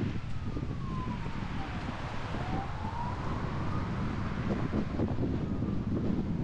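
Steady low road and wind rumble from a car driving, with a faint distant siren wailing over it: its pitch slides down, then back up, and it fades out about halfway through.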